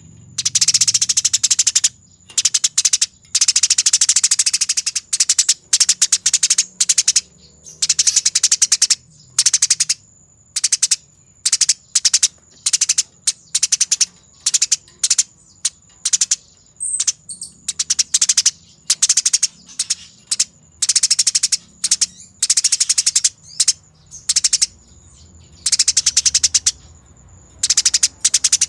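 Burung gereja tarung (a sparrow) singing in a fast, tightly packed, chattering rolling song. It comes in repeated bursts of half a second to two seconds with short pauses between them. A faint steady high whine runs underneath.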